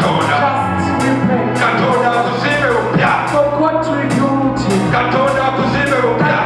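Church worship music: a band playing sustained keyboard chords and bass over a steady drum beat, with singing.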